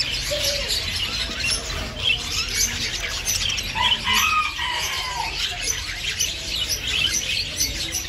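A roomful of caged small birds, budgerigars among them, chirping and chattering all at once in a dense, continuous twitter, with a few lower calls about halfway through.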